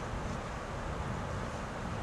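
Steady rush of flowing river water, with wind buffeting the microphone as a low, fluttering rumble.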